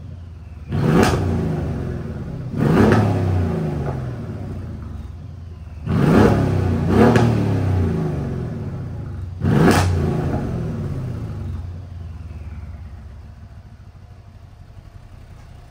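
Renntech-tuned 4.7-litre twin-turbo V8 of a 2014 Mercedes E550, with its exhaust resonators deleted, revved from idle five times. Each rev climbs sharply and falls back slowly; the third and fourth come close together. It then settles back to a lower idle.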